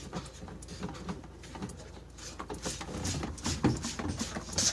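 Trigger spray bottle spritzing olive oil onto a refrigerator's evaporator coils: a few short hissing sprays in the second half, the clearest near the end, amid faint handling noise.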